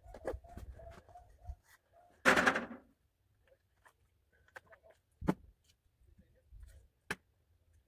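A cottontail rabbit being skinned by hand, with scattered small clicks and handling sounds as the hide is pulled from the carcass. One louder noisy rasp lasts about half a second, two seconds in.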